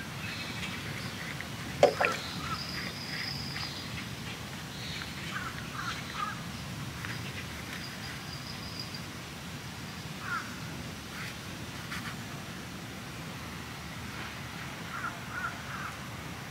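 Crows cawing in short series of two or three calls, spaced several seconds apart, over a steady outdoor background with a few thin, high bird notes. A single sharp click about two seconds in is the loudest sound.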